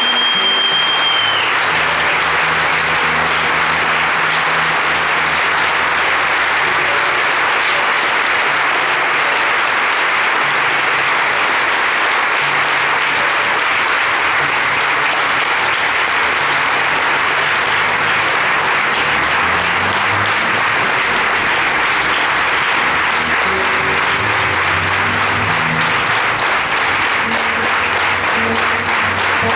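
Sustained audience applause, with a nylon-string classical guitar playing soft low notes underneath. A short, high, steady whistle sounds at the very start.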